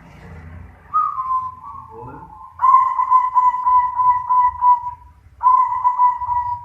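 Zebra dove (perkutut) cooing. A falling note comes about a second in, then a long run of quick, evenly pulsed coos, a short break, and a second run near the end.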